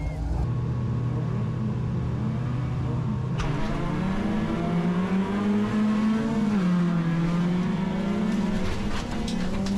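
Bilcross race car's engine heard from inside the cabin, first running at steady revs on the start line, then from about three and a half seconds in revving hard as the car launches and accelerates, its pitch rising and dropping through gear changes.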